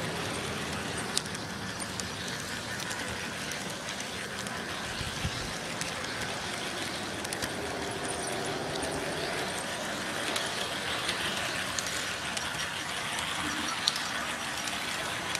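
G scale model train running along its track: a steady mechanical running noise with scattered sharp clicks.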